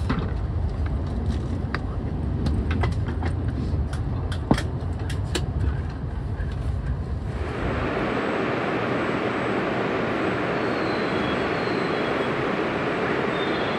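Cabin rumble of a Nishi Kyushu Shinkansen train running on the viaduct, with scattered sharp clicks and ticks. About seven and a half seconds in, it switches abruptly to a steady hiss on the station platform.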